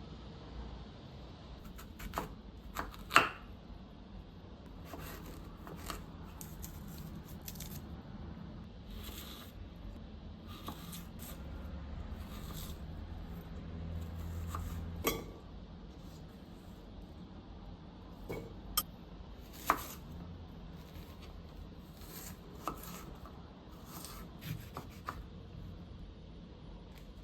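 Kitchen food preparation: irregular clicks, taps and scrapes of a knife, utensils and dishes, with a sharp clack about three seconds in and two more about nineteen and twenty seconds in.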